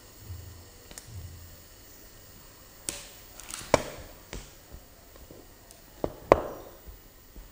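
A spatula knocks against a pot of boiling noodles while stirring them: a cluster of sharp clicks about three to four seconds in and two more a little after six seconds, over a faint simmer.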